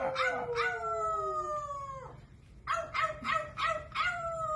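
A parrot imitating a dog's howl: two bouts of quick yipping notes that run into long falling wails, with a short pause between them about two seconds in.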